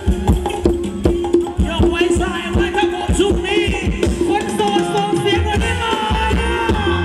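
Live Thai ramwong band music played loud through a PA, with shaker and wood-block-like percussion under steady held melodic notes. The deep bass drops out early on and comes back about six seconds in.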